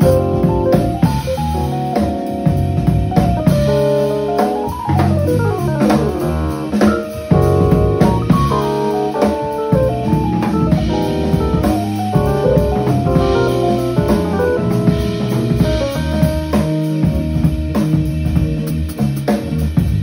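A live funk-jazz band playing: keyboard with quick runs of notes, drum kit and guitar.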